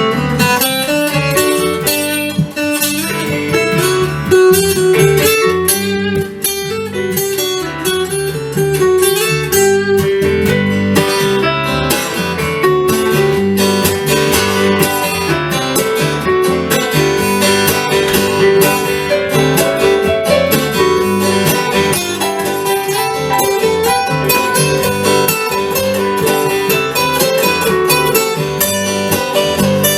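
Guitar playing an instrumental passage, a steady run of plucked and strummed notes with no singing.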